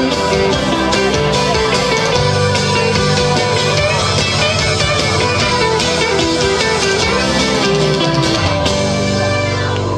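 Live band playing an instrumental passage: electric and acoustic guitars over keyboards, with no singing.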